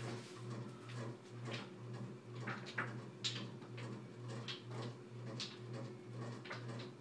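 Someone rummaging through things on a dresser: scattered light clicks, knocks and rustles, over a steady low hum.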